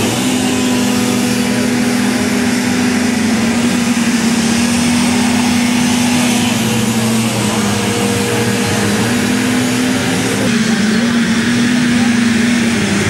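Engines of several six-wheeled ATVs racing on a dirt track: a steady loud drone whose pitch dips and rises a few times as the drivers work the throttle.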